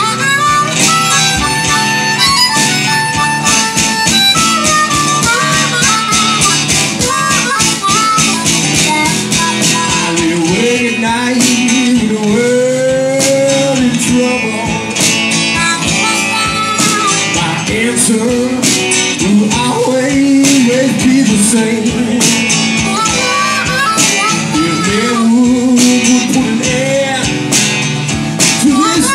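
Live blues: a harmonica plays a solo of bending notes over strummed acoustic guitar.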